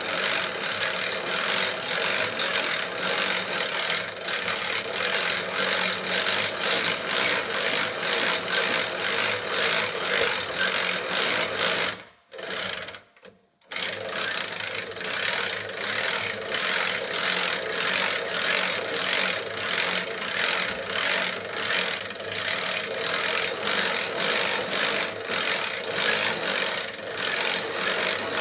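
A Woodlander HM126 portable band sawmill running: a steady engine note with a regular mechanical pulsing. The sound cuts out abruptly for about two seconds midway and then comes back.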